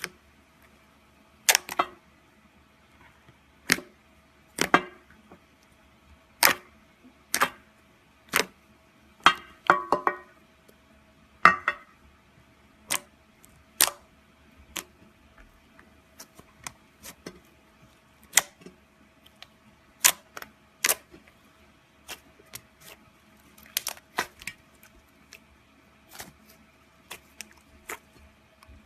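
Slime being squeezed and pressed by hand, giving sharp clicks and pops at an uneven pace of about one a second, some in quick pairs.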